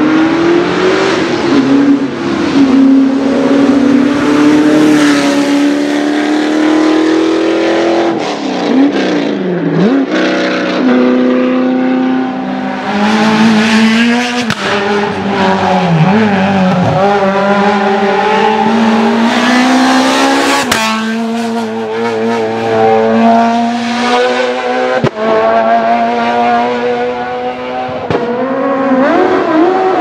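Hillclimb racing cars at full throttle, one after another, engines revving hard with the pitch climbing and then dropping sharply at each gear change.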